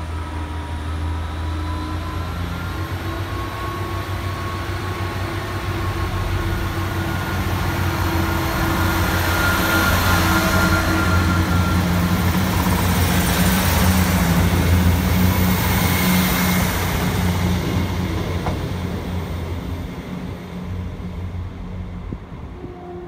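Great Western Railway Class 158 diesel multiple unit pulling away from the platform and passing close by, its diesel engines running under power, with a rising whine near the start. The sound grows louder to a peak about two-thirds of the way through, then fades as the train leaves.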